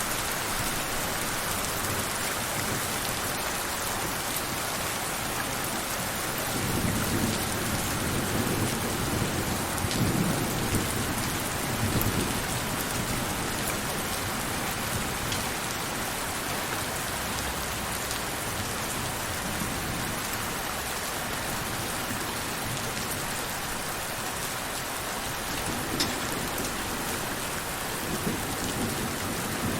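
Steady rain with scattered sharp drop clicks. Low rumbles of thunder roll in about a quarter of the way through and again near the end.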